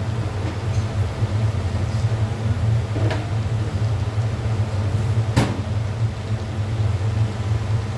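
Steady low rumble of a gas burner under a large stainless steel pot, with two short sharp clicks about two seconds apart near the middle.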